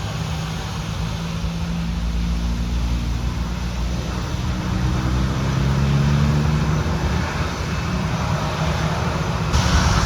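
A bus's diesel engine running, its pitch rising and falling slightly as it moves. Near the end it cuts to the rising whine of an aircraft engine.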